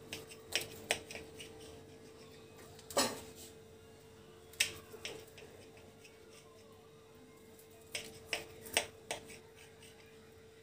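Knife cutting through soft steamed dhokla, its blade clicking and tapping against the plate in scattered sharp ticks, with a quick run of taps near the end.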